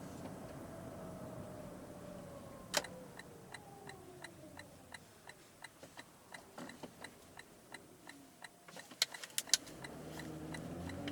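Lexus RX450h slowing down: a drivetrain whine falling steadily in pitch, with a light, even ticking about three times a second. A few sharp clicks come near the end, and then the running noise builds again.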